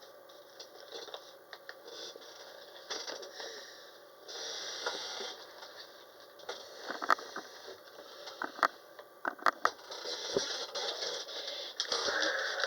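Small packaging and collection pieces being handled: scattered light clicks and rustles, busiest in the second half, with a short hiss about four seconds in.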